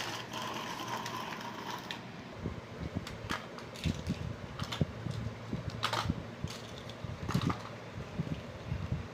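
Plastic toy vehicles being handled, giving irregular clicks and rattles over a steady low hum.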